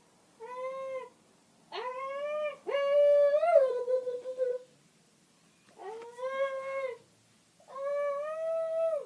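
A person making wordless vocal noises: a series of five held, singsong notes, each a second or two long with short gaps between, some bending in pitch at the ends.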